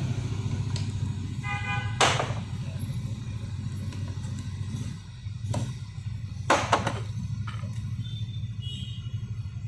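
Steady rumble of road traffic. Over it come sharp plastic clicks and knocks as the hammer drills' hard plastic carry cases are handled and snapped open: one about two seconds in, and several close together around the middle. A brief beep sounds just before the first click.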